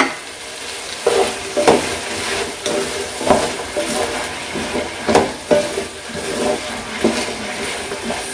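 Vegetable batons being stirred with a spatula in a non-stick pan, mixing in freshly added curd, over a faint sizzle from the heat. There are short scraping strokes about once a second.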